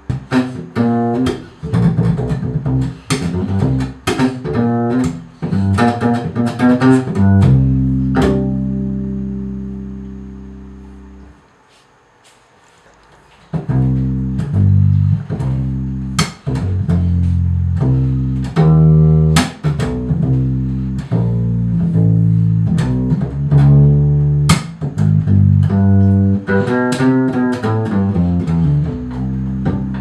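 Double bass played pizzicato: quick runs of plucked notes, then a long low note left to ring and fade, a short pause about twelve seconds in, and more plucked bass lines after it.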